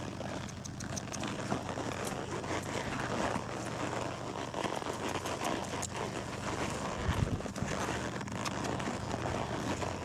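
Horse being ridden along a trail: irregular hoof and tack clicks over a steady low hum, with one louder low thump about seven seconds in.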